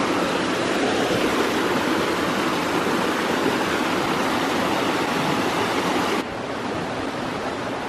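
Small waterfall rushing and splashing down over rocks in a steady roar of water; the sound drops somewhat in level about six seconds in.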